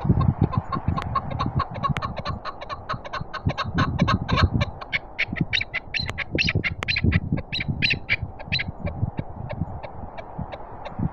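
Chukar partridge calling a long run of quick chuck notes, about five a second, growing louder through the middle and fading near the end. Cold wind buffets the microphone with a gusty low rumble throughout.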